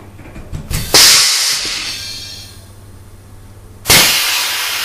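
Compressed air hissing at an Avdel 73200 pneumatic-hydraulic installation tool as the air supply is reconnected and the air piston is driven back to its top position. A sudden blast about a second in fades away over a second or so, and a second sudden hiss starts near the end and stays steady.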